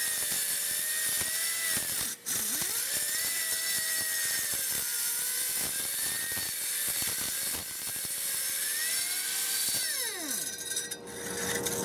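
Air-powered crack cleaner's spinning wheel grinding along a crack in concrete, its motor whining with a pitch that wavers under load. The whine drops and picks up again about two seconds in, and near the end it falls in pitch as the tool spins down.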